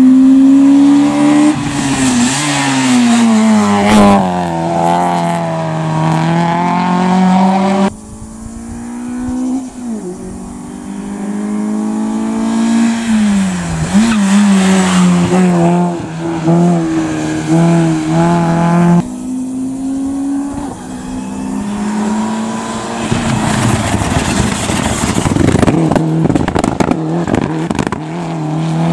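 Hillclimb race cars accelerating hard, engines climbing in pitch and dropping back at each gearshift. Three separate runs follow one another, each breaking off abruptly.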